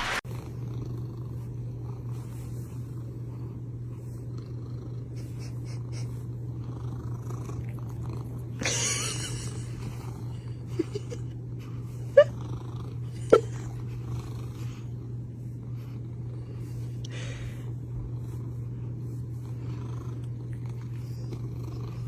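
A cat purring steadily, with no breaks. A brief rustle comes a little under halfway through, and two short sharp clicks follow about a second apart.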